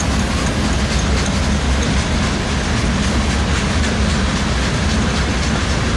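Loaded grain hopper cars of a freight train rolling past: a steady rumble and rattle of steel wheels on the rails, with repeated clicks of wheels over the rail joints.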